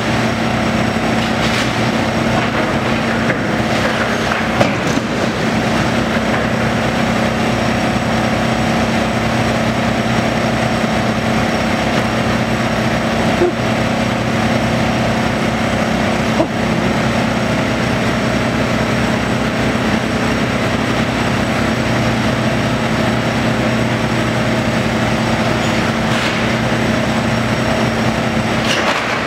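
Tracked demolition excavator's diesel engine running steadily under hydraulic load as its grab tears at a building, with the crunch and clatter of breaking debris and a few sharp knocks.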